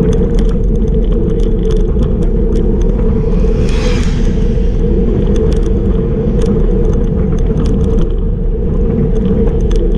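Bicycle riding at about 37 km/h on rough asphalt, heard from a bike-mounted camera: a steady rumble of wind and tyres with a hum, and frequent small rattling clicks. About four seconds in, a brief rushing hiss as a motorcycle passes close alongside.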